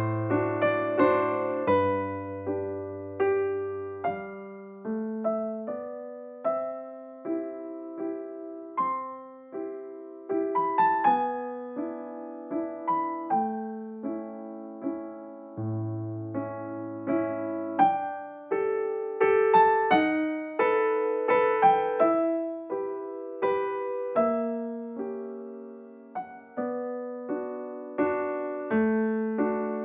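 Background music: a gentle piano melody of single notes, each decaying after it is struck, over soft low bass notes.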